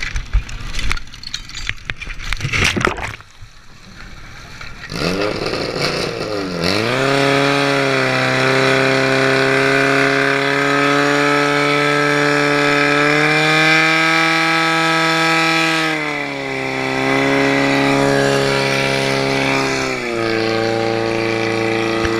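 Knocks and clatter of hoses and couplings being handled, then a portable fire pump's engine revs up about five seconds in and runs steadily at high revs while pumping water, its pitch dipping slightly twice near the end.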